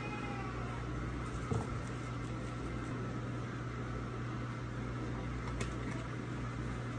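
Steady low mechanical hum of a running kitchen appliance, with a short click about a second and a half in and a fainter one near the end as the plastic lids of seasoning shakers are opened.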